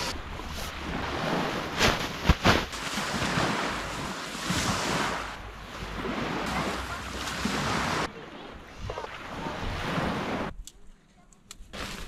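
Close-up rustling and crinkling of nylon shelter fabric and an inflatable sleeping pad being handled, with a few sharp clicks about two seconds in. The sound changes abruptly twice near the end and briefly goes almost quiet.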